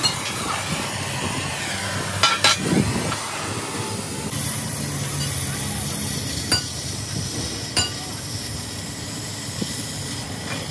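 Metalworking noise: a steady hiss that brightens about four seconds in, with sharp metal clinks twice close together about two seconds in and twice more later.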